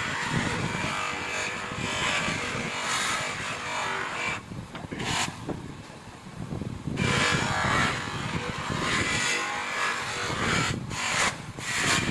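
Power polishing tool running against a metal drum brake cover, its sound rising and falling with the pressure. It eases off for a couple of seconds around the middle, then bites again.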